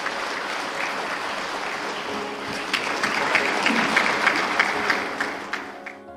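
Audience applauding. The clapping swells, with sharper individual claps from about halfway, then dies away near the end.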